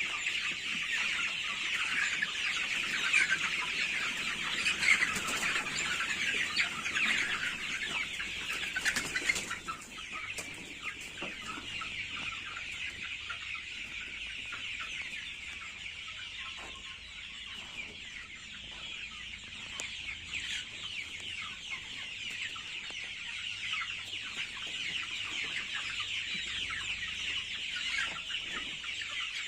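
A flock of young country chickens, about 54 days old, calling and clucking without pause, many short calls overlapping into a dense chatter. It is louder for the first ten seconds or so, then settles a little quieter.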